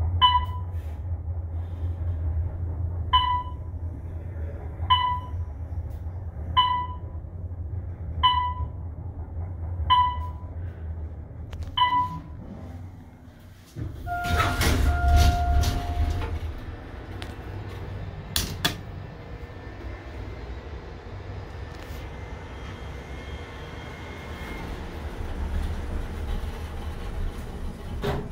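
Otis traction elevator car travelling with a low rumble and a short beep about every second and a half, the floor-passing signal. About fourteen seconds in it stops, a chime sounds and the doors slide open. A sharp clunk follows a few seconds later, then a steady hum with faint tones.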